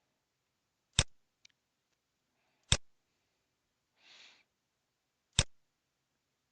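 Three sharp computer mouse clicks, spaced irregularly about a second and a half to two and a half seconds apart, with a faint short hiss between the second and third.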